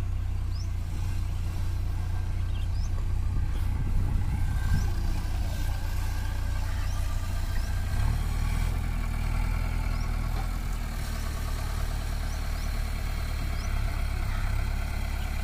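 Diesel engines of a farm tractor and a JCB backhoe loader running steadily at idle, with a strong low hum. A few faint, short high chirps sound over it.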